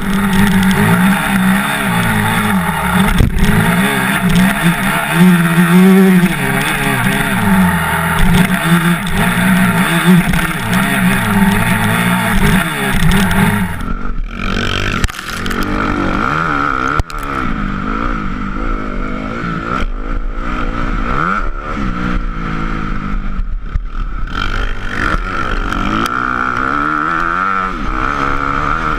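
Honda CRF single-cylinder four-stroke motocross bike engine revving up and down as it is ridden around a dirt track, with wind buffeting the helmet-mounted camera. The wind hiss drops away about halfway through, leaving the engine note clearer.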